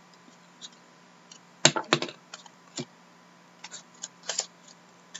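Trading cards being handled and flipped through on a wooden table: a scattering of light clicks and taps, bunched in the middle, over a faint steady hum.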